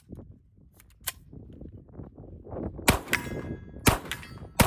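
FM Products FM-9 9mm pistol-caliber carbine with a 7-inch barrel firing three loud shots in quick succession in the second half, each ringing out briefly. A fainter crack comes about a second in.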